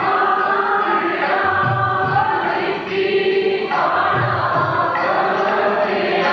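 Sikh shabad kirtan: several male voices singing together over a sustained harmonium, with tabla keeping the beat.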